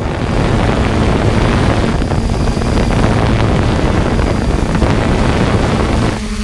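Quadcopter drone's motors and propellers whirring with a steady hum, heard through its own onboard camera, with wind buffeting the microphone as it comes down to land.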